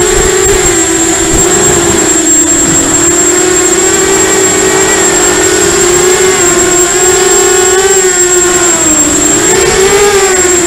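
Quadcopter's electric motors and propellers heard close up from its onboard camera: a loud, steady buzzing whine whose pitch wavers up and down with the throttle, dipping near the end and rising again, over a thin steady high whistle.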